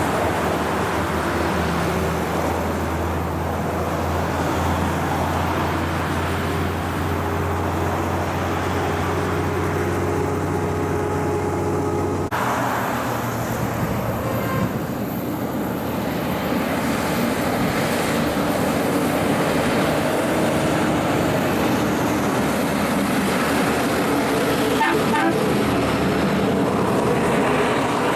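Heavy diesel trucks on a hill climb: a loaded log truck and trailer running steadily as it pulls away, then, after a cut about 12 seconds in, a truck-and-trailer curtainsider approaching and passing close, getting louder near the end.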